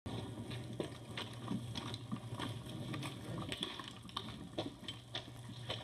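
Footsteps crunching on track ballast and ties, about two steps a second, over a steady low hum.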